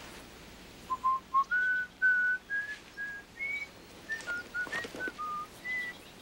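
A person whistling a slow tune, a string of clear single notes starting about a second in.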